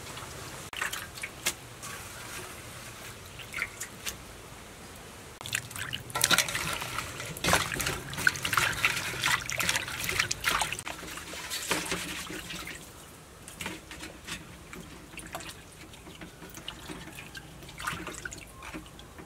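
Hands swishing and splashing water in a stainless steel bowl while washing herbs and lemongrass, in irregular bursts that are busiest and loudest through the middle and lighter toward the end.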